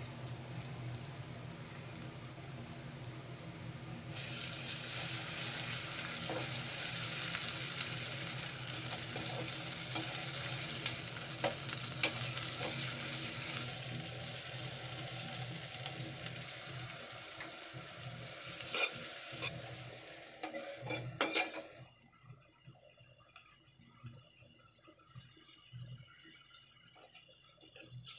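Onions, dried red chillies and garlic paste frying in oil in an aluminium pot, sizzling while a spatula stirs and clinks against the pot a few times. The sizzle turns loud about four seconds in, dies away around twenty seconds in, and leaves only faint stirring sounds.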